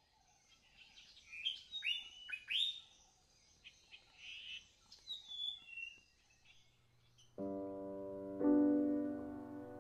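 Songbirds chirping and calling, several loud notes sliding quickly downward in pitch. About seven and a half seconds in, soft piano chords of background music come in.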